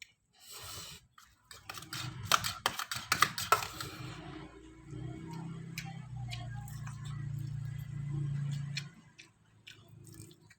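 Close-miked eating of instant noodles: a short slurp-like rush, then a quick run of sharp wet clicks and smacks from chewing. Then a few seconds of a low, steady sound as the chewing goes on.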